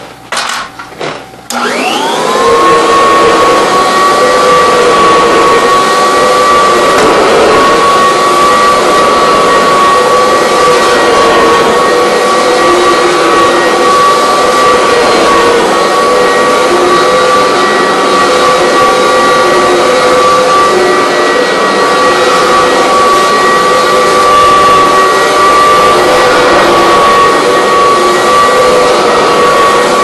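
Upright vacuum cleaner switched on after a few clicks, its motor whining up to speed about a second and a half in. It then runs steadily with a high whine as it is pushed over carpet.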